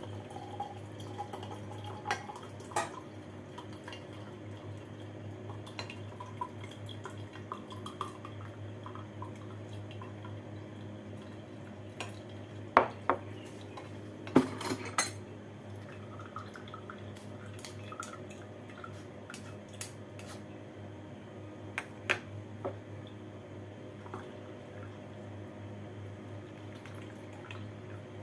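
Kitchen utensils and dishes clinking now and then, with a few sharp knocks about two to three seconds in, a louder cluster in the middle and two more about 22 seconds in, over a steady low hum.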